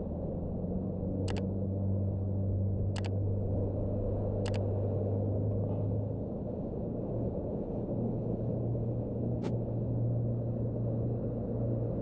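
Boat motor running steadily with a low hum, its pitch rising slightly about six seconds in as the engine speeds up. Four sharp clicks sound over it.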